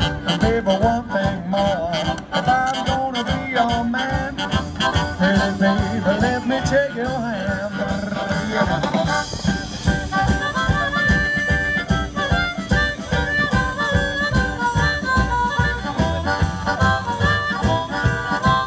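Live swing band playing, with a harmonica carrying the melody over upright bass and a steady drum beat.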